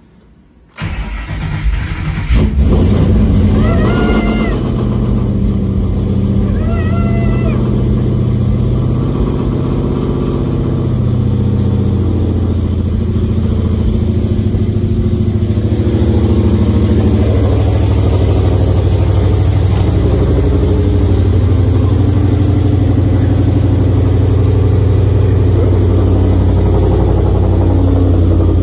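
Ford 5.0 Coyote V8 (Gen 3 short block, ported Gen 2 heads, custom cams, JBA header-back exhaust) cranking and catching on its very first start about a second in. It then runs on at a steady idle.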